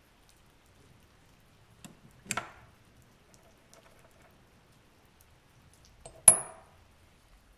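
A short knock about two seconds in, then a sharp clink with a brief high ring as a small rusty metal part drops into an empty glass jar.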